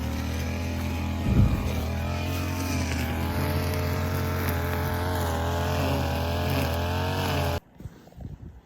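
Steady drone of a car driving, heard from inside the cabin, with a brief thump about a second and a half in. It cuts off suddenly near the end.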